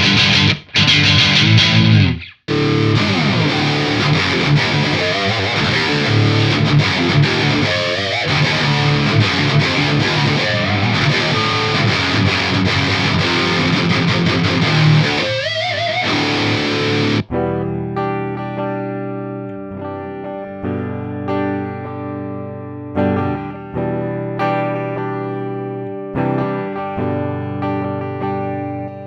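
Aria Pro II TS 400 Thor Sound electric guitar played with a distorted tone, with a sliding note about fifteen seconds in. About seventeen seconds in it changes to a cleaner tone with separate notes and chords that ring out and fade.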